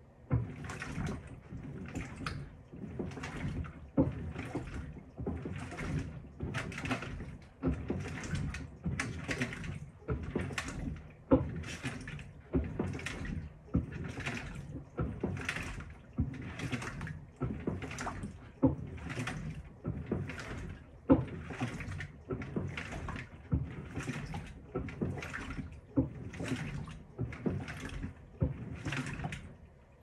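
Panasonic top-loading washing machine agitating a wet load: the pulsator drives water and clothes back and forth in rhythmic swishing surges, a little more than one a second.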